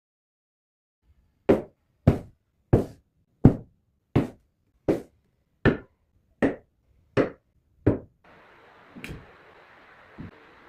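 Ten sharp hammer blows on wood at an even pace, about 0.7 s apart. They stop about 8 s in, and a couple of soft thuds follow over faint room hiss.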